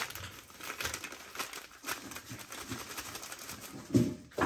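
Plastic spice packet crinkling and rustling in light, irregular bursts as a pinch of powder is taken out and sprinkled by hand. A short louder sound comes near the end.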